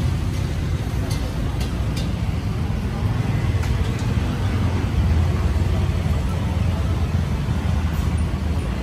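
Street ambience: steady rumble of road traffic with indistinct voices in the background and a few light clicks in the first couple of seconds.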